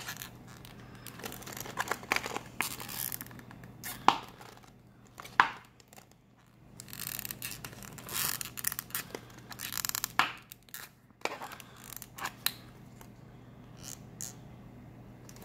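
Clear plastic toy capsule packaging being handled and pried at: irregular crinkling and scraping with several sharp clicks, as a stuck plastic stick is worked loose.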